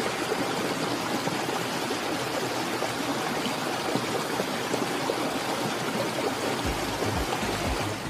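Shallow stream running over a gravel and pebble bed: a steady rush of rippling water.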